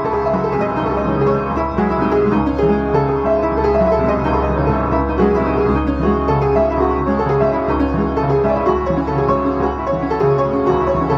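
Solo piano playing a classical piece: a steady stream of quick notes over a low, held bass.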